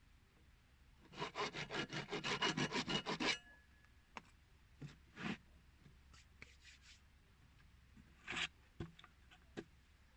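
A file or rasp worked quickly back and forth on the end of a plastic drain pipe: about fifteen even scraping strokes over two seconds, followed by a few scattered knocks and taps.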